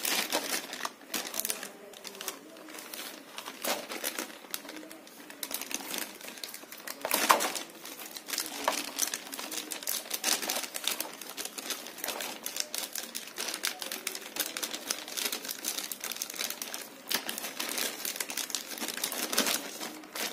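Clear plastic packaging bag crinkling and rustling in irregular crackles as hands unwrap a glue gun from it, with one sharper crackle about seven seconds in.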